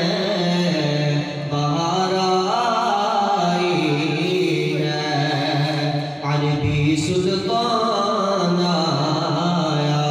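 Male voice singing a devotional kalam (naat) through a microphone and PA, in a chant-like melodic line over a steady low drone, with a short break a little past the middle.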